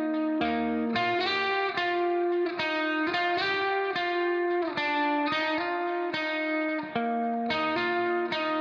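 Instrumental background music: a plucked-string melody of short notes in a steady rhythm.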